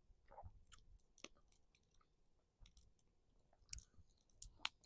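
Faint close-up chewing of a grilled pork chop, with a few scattered soft clicks and mouth sounds.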